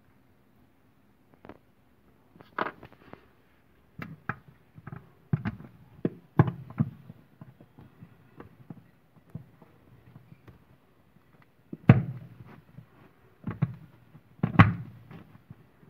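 Hands handling a plastic bulb holder and screws inside a cardboard box: irregular knocks and hollow thumps on the cardboard with small handling clicks, the loudest about twelve seconds in and again near the end.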